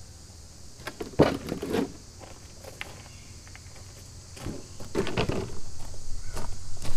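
Knocks and clatter as the fiberglass front body clip of a race car is worked loose and lifted off its tube chassis, followed by footsteps crunching on gravel that grow louder toward the end.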